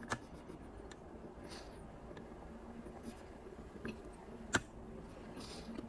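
Quiet room with a few small, faint clicks and taps and two brief soft hissing sounds, over a faint steady hum.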